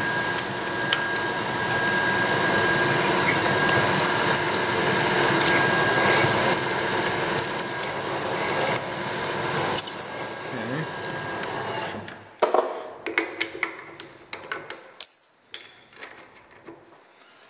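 Machine spindle running, drilling a hole through an aluminium plate: a steady whine with a couple of held tones. About twelve seconds in the machine stops and winds down, followed by sharp metallic clicks and clinks, with one short ring, as the tooling in the spindle is handled and changed.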